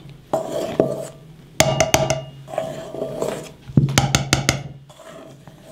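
A cooking spoon knocked against the rim of a stainless steel mixing bowl in short runs of quick taps, once about a third of a second in, a run near two seconds in and a faster run near four seconds in; the bowl rings after each run. The spoon is being tapped off to free it of the whipped egg-white mixture.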